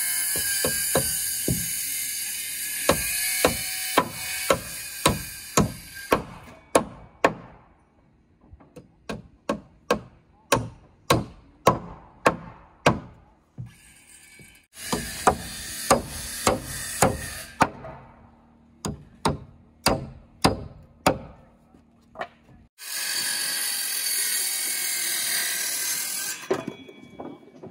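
Hammer nailing wood wall framing: long runs of sharp blows about two a second, each ringing briefly. A power tool runs in three stretches of a few seconds between the runs.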